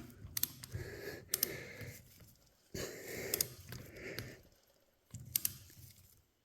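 A man breathing hard and straining while he tightens bolts on a tractor hydraulic pump by hand, with a few sharp clicks of the tools.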